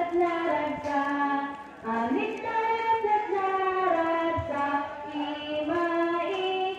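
A group of voices singing a chant together in one melody line, holding notes that step up and down in pitch, with a short pause for breath about two seconds in.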